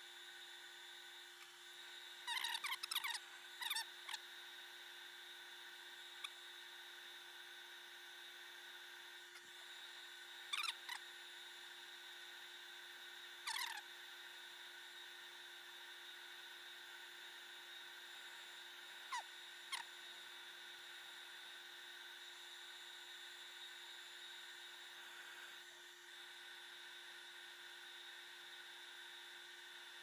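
A few brief squeaks and clicks of a tablet's plastic frame and circuit board being handled and pressed together as the board is fitted back in, over a faint steady electronic hum.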